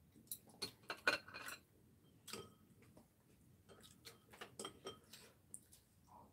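Chopsticks clicking and tapping against ceramic bowls and plates as people eat: a scattered run of light clinks, a few ringing briefly, busiest in the first second and a half and again from about four to six seconds in.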